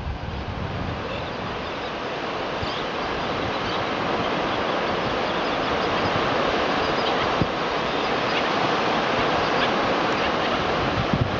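Steady rushing of surf and wind that grows slowly louder, with faint, scattered bird chirps above it.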